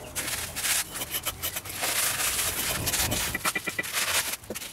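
A brick being bedded onto wet mortar by a gloved hand, with scraping and rubbing of brick against mortar and a quick run of light taps a little after three seconds in.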